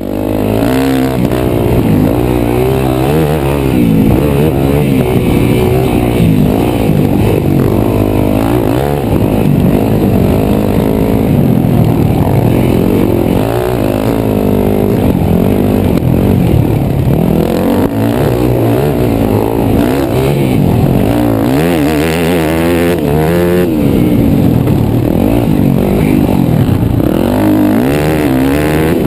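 Dirt bike engine heard on board at race pace, revving up and dropping back again and again as the throttle is worked.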